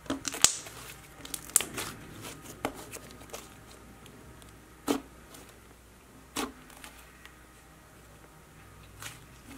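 Soft clay-butter slime being pressed, folded and spread by hand on a hard countertop, giving off small sticky clicks and pops. They come thickly for the first couple of seconds, then as a few single pops spaced well apart.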